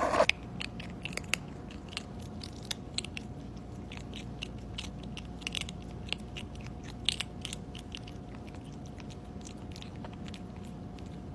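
A pet chewing crunchy food, with a long run of irregular crunches over a faint steady hum.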